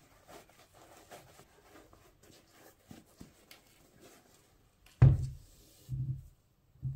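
Gloved hands handling a Nike Dunk High sneaker: soft rustling of its denim upper and laces with small clicks, then a loud thump about five seconds in and a second, softer one about a second later as the shoe is set down on the table.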